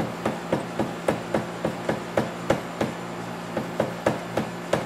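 Light, evenly spaced taps on a CNC mini-mill's loosened column, about three or four a second, nudging the head back into tram. A steady low hum runs underneath.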